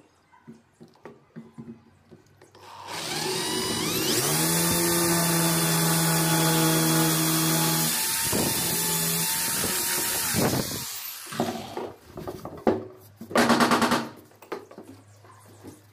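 Electric hand drill boring dowel holes into a wooden cricket bat blade. It spins up about two and a half seconds in, runs steadily for about eight seconds and then stops. A short loud burst follows near the end.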